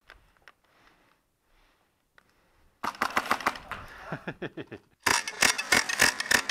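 Airsoft rifle firing in rapid bursts: a short burst about three seconds in, then a longer, louder burst of fast shots from about five seconds in, echoing off the rock walls of a cave. Faint clicks of gear being handled come before the shooting.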